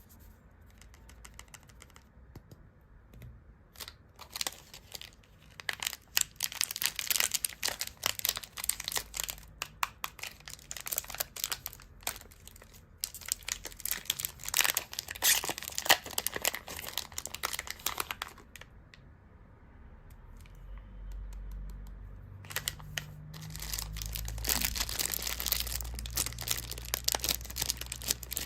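Candy wrappers being crinkled and torn open: dense runs of sharp crackling, paused for a few seconds before starting again.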